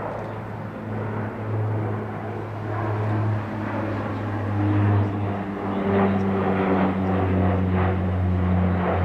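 Airliner's engines droning as the aircraft moves on or near the runway: a steady low hum with held engine tones, getting louder over the second half.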